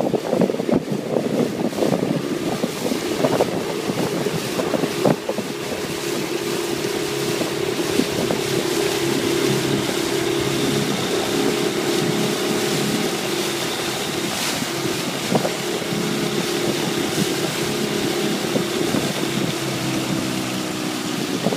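Motorboat engine running steadily under way, with wind buffeting the microphone and water rushing past the hull. The engine's hum is choppier and mixed with gusts at first, then settles into a steady tone a few seconds in.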